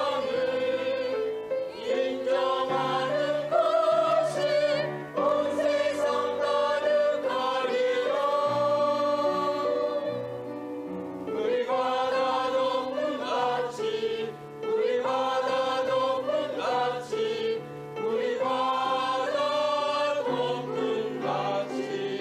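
Church choir singing a sacred anthem in long held chords, the voices wavering with vibrato over a steady low part, in several phrases with brief breaths between them.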